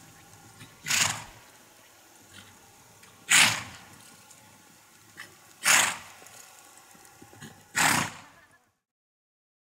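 A horse snorting as it moves: four loud, short, breathy snorts a little over two seconds apart. The sound cuts off suddenly near the end.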